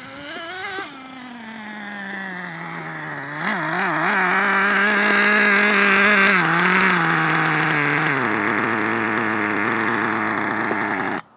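Traxxas T-Maxx RC truck's small nitro glow engine running: a brief rev at the start, then a steady high idle with a couple of short wobbles in pitch, dropping to a lower idle about eight seconds in and dying suddenly near the end. It will not stay running, a fault the owner puts down to a piston installed the wrong way.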